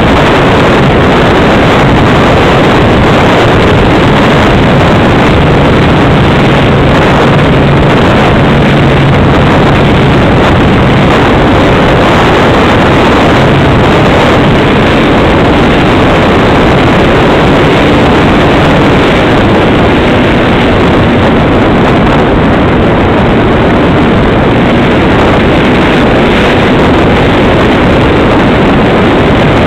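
Model airplane's propeller and motor running in flight, heard from a camera on the airframe as a loud steady rush of air and buzz. A faint low hum underneath changes pitch partway through.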